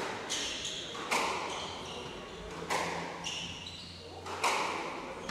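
Squash rally: the hard rubber ball is struck by the rackets and smacks the walls, about four sharp knocks one to two seconds apart. Short high squeaks from court shoes on the wooden floor come between the hits.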